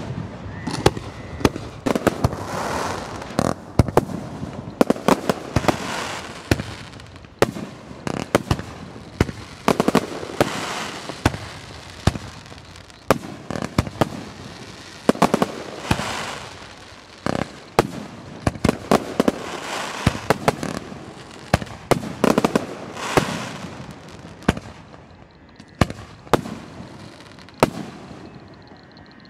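Aerial firework shells bursting in rapid succession: many sharp bangs, several close together, over swells of hissing noise that rise and fall every few seconds.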